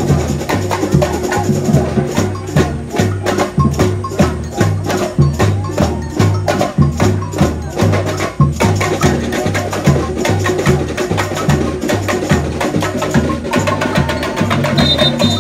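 Samba drum section playing a parade samba: bass drums on a steady beat about twice a second under dense, rapid higher percussion. A high whistle joins near the end.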